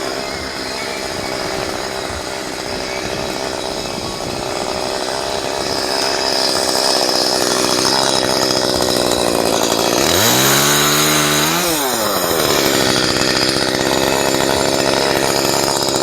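Chainsaw running and cutting branches with a dull chain that is nearly worn out after repeated hand sharpening. The engine note steadies and then briefly swoops in pitch about ten seconds in before settling again.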